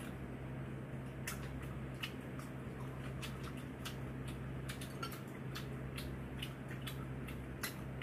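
Eating sounds at a meal: scattered light clicks and taps of tableware and chewing, over a steady low hum.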